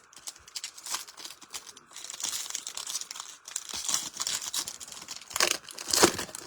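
Plastic wrapper of a baseball card pack being torn open and crinkled by hand: light crackling at first, a stretch of dense rustling, then two louder rips near the end.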